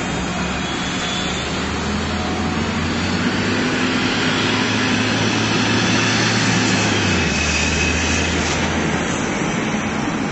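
Road traffic with a bus passing close by: its engine hum grows louder, then drops in pitch about seven seconds in as it goes past.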